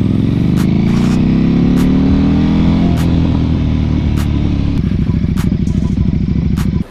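KTM RC8R V-twin engine running through a Jester aftermarket exhaust, its note climbing over the first couple of seconds, dropping about three seconds in, then running on with a pulsing beat before cutting off suddenly near the end.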